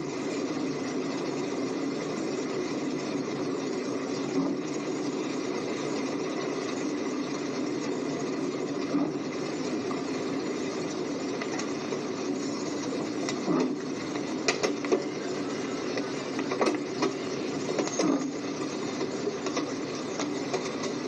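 Steady mechanical running noise, like a vehicle engine, over flooded-street ambience, with a few sharp clicks from about two-thirds of the way in.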